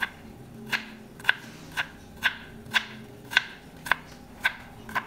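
Chef's knife dicing carrot on a plastic cutting board: a steady run of about ten sharp chops, roughly two a second.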